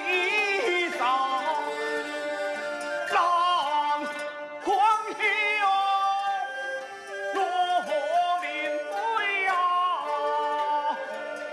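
Taiwanese opera (gezaixi) singing: a solo voice holds long notes with sliding ornaments over traditional instrumental accompaniment.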